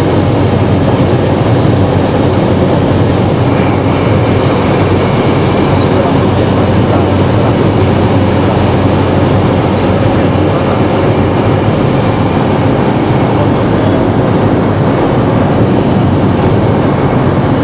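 Cabin noise of a Cessna Caravan floatplane in flight: its single Pratt & Whitney PT6A turboprop engine and propeller give a loud, steady drone with a low hum, heard from inside the cockpit.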